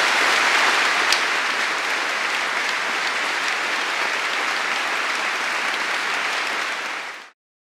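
Sustained applause from a large seated audience, steady and dense, cut off suddenly near the end.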